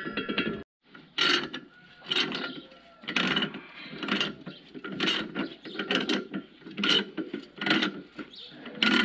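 Ratchet wrench being worked back and forth, a short burst of ratchet clicks with each stroke about once a second, tightening the nut on the shaft of a disc harrow gang fitted with new discs.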